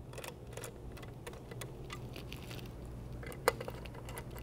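Faint small clicks and scrapes of a screwdriver working the hold-down screws of a Holley Dual Sync distributor cap, with one sharper click about three and a half seconds in, over a low steady hum.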